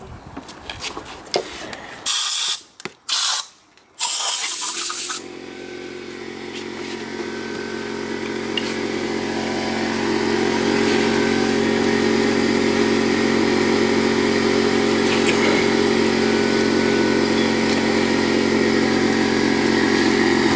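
A few short blasts of compressed air hissing. Then, about five seconds in, a motor-driven machine starts and runs steadily with a buzzing hum that grows a little louder before levelling off.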